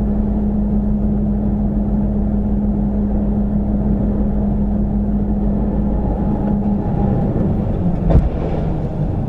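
Engine and road noise heard from inside a vehicle cab cruising at about 60 km/h: a steady low drone with a constant hum, which shifts in pitch about seven seconds in. About eight seconds in there is a single sharp knock.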